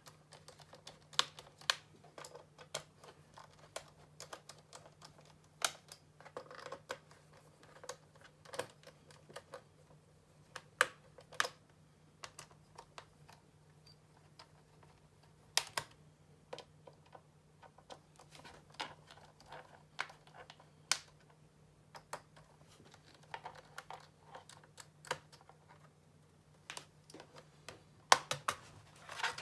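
Irregular small clicks and taps of a screwdriver and hands working on the plastic underside of an Acer Extensa 5220 laptop while its back cover screws are undone and the cover is taken off, with a louder cluster of clicks near the end. A faint steady low hum runs underneath.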